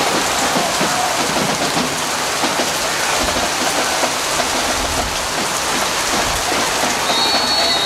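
Steady hiss of rain falling. A referee's whistle blows briefly near the end as the play is stopped.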